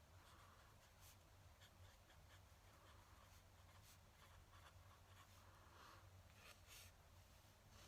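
Fountain pen nib scratching faintly on paper in short, irregular strokes over a low steady hum.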